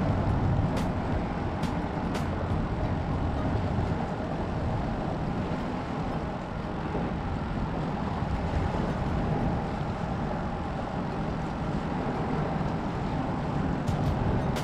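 Strong wind buffeting the microphone, a steady low rumble, with a few faint clicks in the first two seconds.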